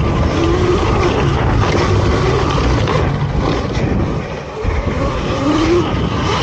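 Dirt bikes riding hard on a track: wind rushing over the microphone mixed with motorcycle engines revving up and down in short rising pulls. The noise eases briefly about two-thirds of the way through.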